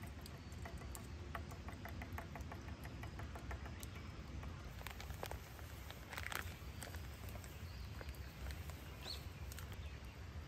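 Pancake mix tipped from a plastic bag into a small stainless steel bowl, giving a brief rustle and rush of powder about six seconds in. Before it comes a run of quick, light ticks. A steady low rumble lies under everything.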